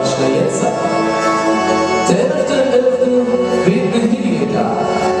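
Live band playing a Kölsch carnival rock song, loud: electric guitar, keyboards and drums.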